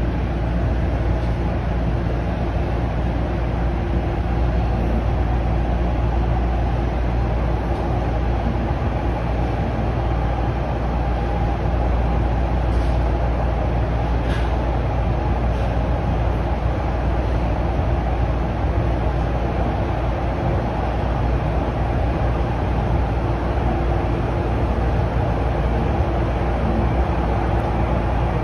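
Toronto Rocket subway train running between stations, heard from inside the car: a loud, steady rumble of wheels on rail with a steady hum over it. Two faint clicks come about halfway through.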